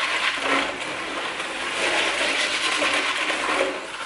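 Tap water running into a stainless-steel sink of water, with clams being rubbed together by hand in it.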